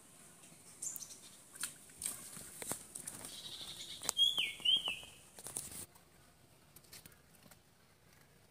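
A small fish hooked on a bamboo pole thrashes and splashes at the pond's surface as it is pulled out, with quick sharp water slaps that stop suddenly about six seconds in. Two short high chirps falling in pitch sound over the splashing about four seconds in.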